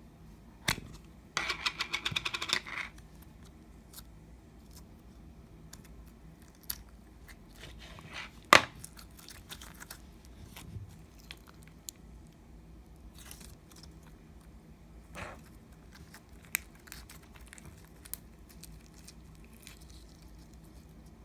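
Slime being handled for ASMR, giving scattered small clicks and pops. About a second and a half in there is a quick run of rapid crackling pops, and there is one sharp, loud pop about eight and a half seconds in.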